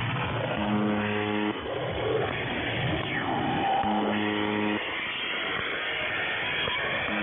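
Harsh noise music received over shortwave radio, narrow-band and hissy. A low, one-second buzz tone cuts through about every three seconds, the UVB-76 'Buzzer' marker. The buzz sounds twice in full and starts again at the very end.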